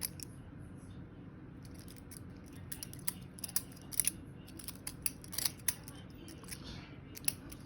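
Butterfly knife (balisong) being flipped open and closed in the hand, its handles and blade clacking in sharp metallic clicks. The clicks come in irregular runs with pauses of a second or two between them.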